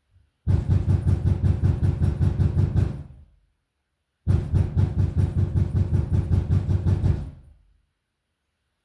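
Rapid, loud pounding on a door: two long bouts of fast repeated blows, about five or six a second, the second bout starting about four seconds in.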